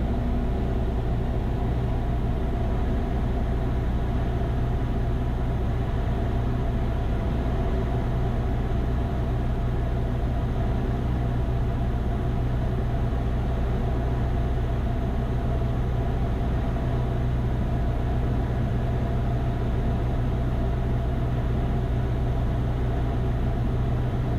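Cessna 172's four-cylinder piston engine and propeller running steadily in cruise, heard inside the cabin as a constant low drone.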